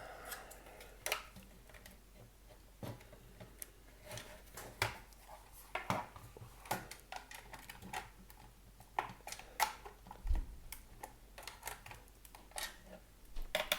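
Irregular small clicks and taps of a screwdriver and hard plastic and metal parts being handled, dozens of them with no steady rhythm, as a wireless access point's housing and backing plate are worked apart.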